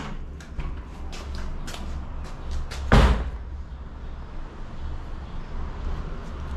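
A metal door being opened and pushed through: a run of small clicks and knocks from the latch and handle, then one loud bang about three seconds in. A steady low rumble sits underneath.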